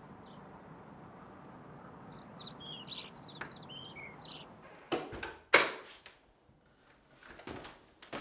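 Small birds chirping in a quick run of short falling notes over a low background hiss, then two sharp thuds about five seconds in, the second the loudest, like a door being shut, with a few softer knocks near the end.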